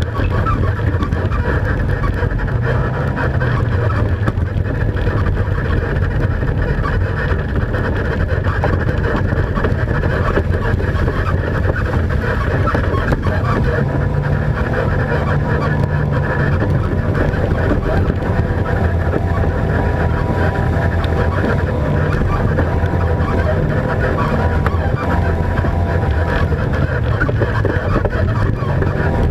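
Race ATV engine running continuously under load, its note rising and falling with the throttle. It sounds loud and muffled, with little above the low and middle range.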